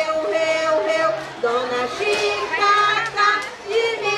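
A children's song sung in a high voice, with held melodic notes over light musical accompaniment.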